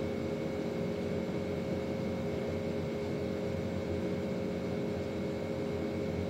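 A steady machine hum with several constant tones over a low noise, unchanging throughout.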